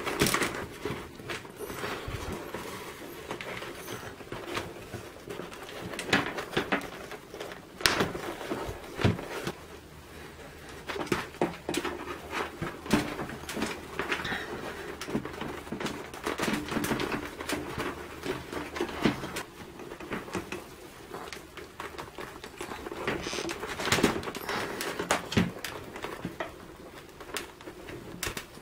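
Handling noise from a Scorpion EXO 900 motorcycle helmet as its padded liner is pressed back into the shell: fabric rustling with irregular plastic clicks and knocks.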